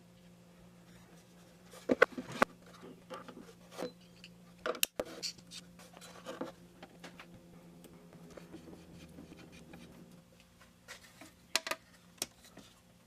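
Scattered light clicks and knocks of handles and small parts being fitted onto a mini milling machine, with a faint steady hum underneath.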